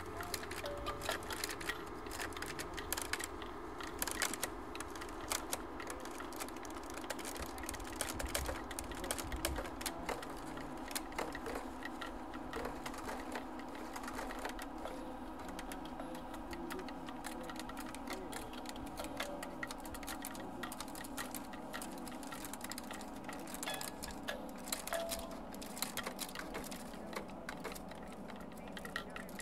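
Experimental electronic music: dense, rapid clicks and ticks over steady sustained tones.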